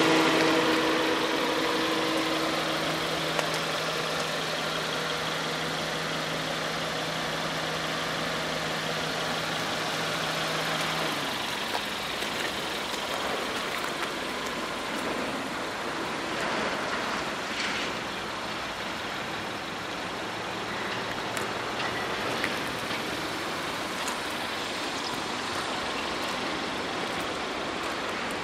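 Car engine idling with a steady hum that cuts off about eleven seconds in. Outdoor background noise follows.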